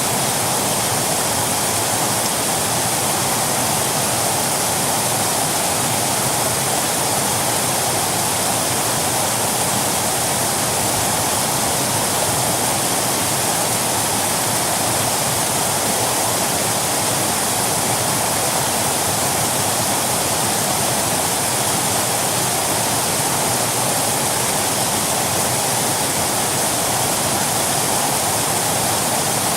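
Waterfall: falling water in a steady, even rush.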